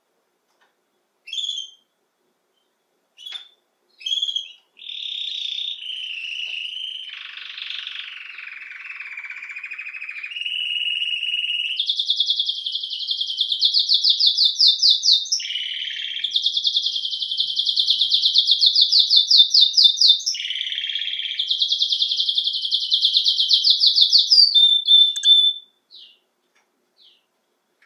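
Domestic canary of the Belgian breed singing: a few short chirps, then one long continuous song. It opens with lower, buzzier phrases and moves into rapid high trills that are the loudest part, ending a couple of seconds before the close.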